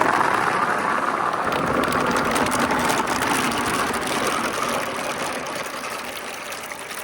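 Many glass marbles rolling and clattering down a marble run, a dense continuous rattle that slowly thins and quietens toward the end.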